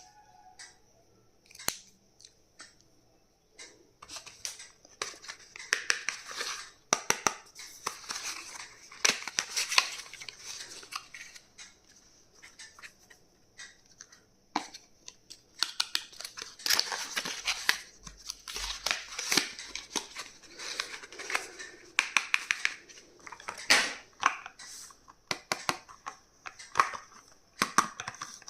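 Hands unpacking stationery: packaging rustling and tearing, with frequent sharp clicks and taps as the items are handled.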